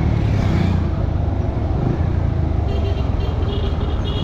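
Motorcycle engine running steadily under way, with wind rushing over the microphone on the moving bike.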